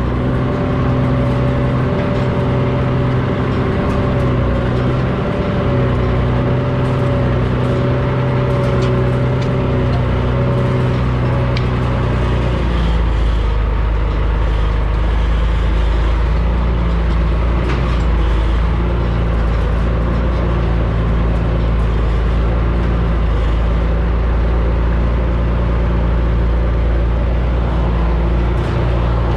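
Deuce-and-a-half military truck engine running steadily under load while it drags a disc harrow. About twelve seconds in, its note drops and becomes a deeper, heavier rumble.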